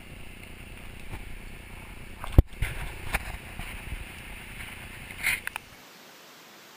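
Rumble and knocks of a handheld camera being jostled, with one sharp knock about two and a half seconds in and a few lighter ones after, then a steady plain hiss from about six seconds on.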